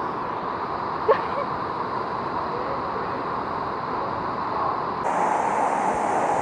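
Steady rush of falling and flowing water from the waterfall and river, with one brief sharp sound about a second in.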